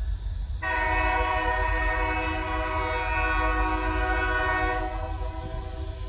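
Diesel freight locomotive's air horn blowing a long held chord, which jumps suddenly louder and fuller about half a second in and falls back near the end, over a low rumble.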